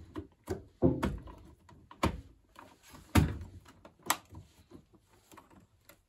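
Plastic front control panel of a washing machine being pushed and snapped into place: a string of sharp knocks and clicks about a second apart, the loudest about three seconds in.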